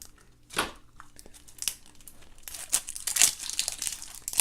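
A toy blind-pack wrapper being torn open and crinkled by hand: irregular crackling and tearing, with a sharp rip about half a second in and a denser run of crinkling over the last couple of seconds.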